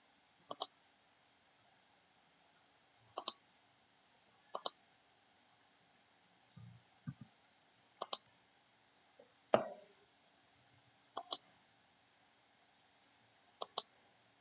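Computer mouse button clicks, mostly in quick pairs, every couple of seconds, with one louder knock about ten seconds in.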